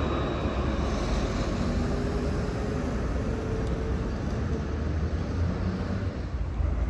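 Alstom Citadis tram running along the street, a low rumble with a faint motor whine, gradually fading as it moves away.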